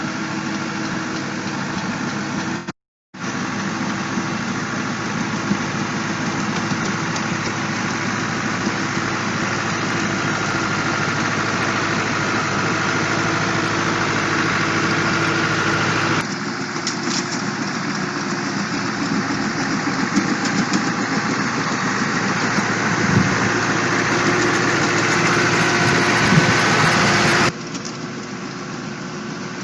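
Engine of a tree-cutting machine running steadily, with a constant low hum under a wide mechanical noise. The sound drops out briefly about 3 seconds in and shifts abruptly twice more, near the middle and near the end.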